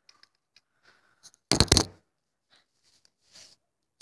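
Handling noises on a hard tabletop: faint light taps, then a short loud clatter of knocks about one and a half seconds in, and a faint rustle near the end.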